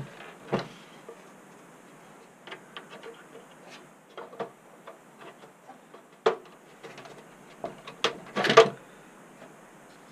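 Plastic clicks, taps and knocks as the beige front bezel of an HP Vectra VL400 desktop case is worked loose and pulled off the steel chassis. Light scattered ticks are followed by sharper knocks at about six and eight seconds in, and a short, loud rattling scrape comes just after eight seconds.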